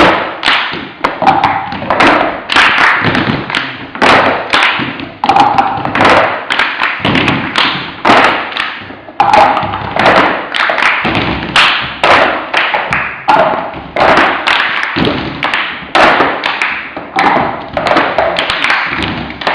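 Cups being tapped, slapped and knocked on a table together with hand claps, in the repeating rhythm of the cup game; the pattern comes round about every four seconds.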